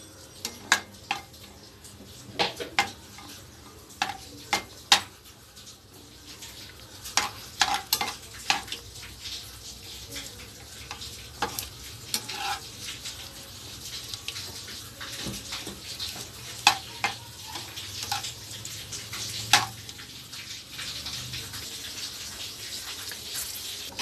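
Cashews and raisins frying in ghee and oil in a kadai, sizzling, while a steel ladle stirs them with many sharp clinks and scrapes against the pan. The sizzle grows louder in the second half.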